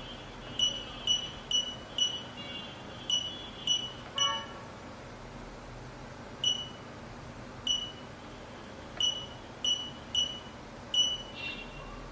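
Touch-screen alarm control panel giving short high key-press beeps, about a dozen at uneven intervals, each with a faint click. Two different, lower multi-tone chirps come about four seconds in and again near the end.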